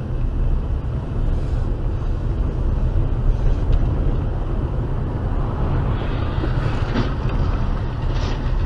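Steady road noise of a car driving on a wet road, picked up by a dashcam inside the car: a low rumble of engine and tyres with a hiss above it.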